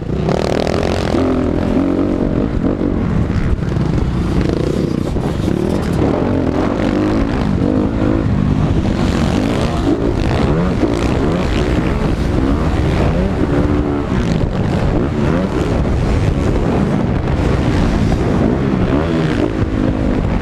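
Several motocross dirt bikes racing, their engines revving up and down. The overlapping engine notes keep rising and falling in pitch as the bikes accelerate and back off.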